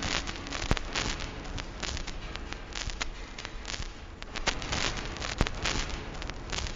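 Dense crackle and popping over hiss, like a badly degraded record's surface noise, with scattered sharp clicks and no clear melody: a lo-fi noise passage of an ambient sound collage.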